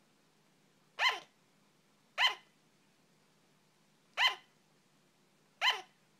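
Sugar glider barking: four short, separate barks at uneven gaps, each sliding down in pitch, that sound like hiccups.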